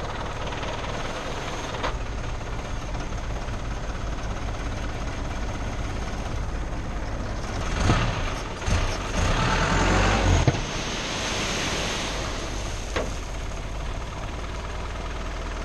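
Mazda T4000 tipper truck's diesel engine running steadily with the PTO engaged, driving the hydraulic hoist that tips the tray. A louder rushing rumble lasts about three seconds near the middle.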